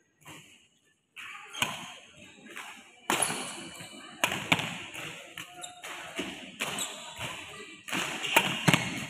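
Badminton rally: sharp racket strikes on a shuttlecock, roughly one a second, with footwork on the court between them. A short gap of near silence comes about a second in, before the rally picks up.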